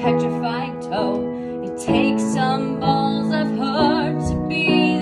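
A woman singing to her own upright piano accompaniment, holding notes with vibrato over chords struck about once a second.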